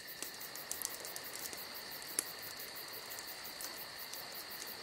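Crickets chirping: a steady, even high-pitched trill with rapid regular pulsing and a few faint clicks.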